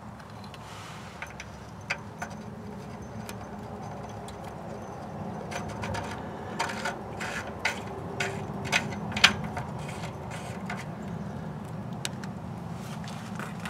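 A new oxygen sensor being threaded by hand into the exhaust bung on a Subaru EZ30 flat-six gives a run of light clicks and scrapes. It is busiest from about halfway through, one sharper click near the end. A steady low hum runs under it throughout.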